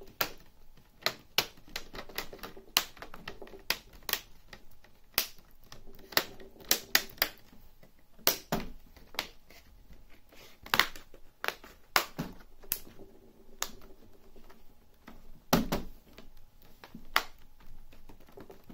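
A Dell Inspiron 15 5570 laptop's plastic screen bezel being pressed back onto the lid by hand, its clips snapping into place in a long run of sharp, irregular clicks. The loudest snaps come a little past halfway and again near the end.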